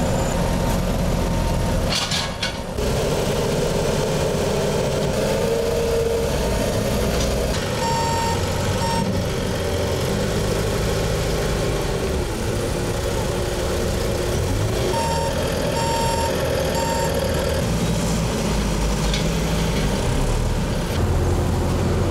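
Diesel engines of heavy roadworks machinery, a JCB backhoe loader with a dump truck beside it, running steadily. A reversing alarm sounds twice, each time as a short run of a few beeps.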